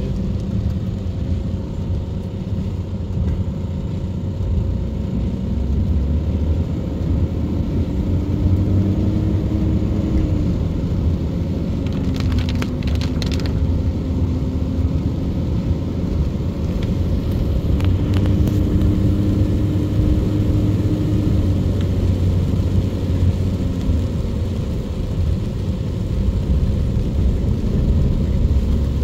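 Car driving on a wet road, heard from inside the cabin: a steady low engine and tyre rumble, with the engine note slowly rising and falling as the car speeds up and slows. A few short clicks come about halfway through.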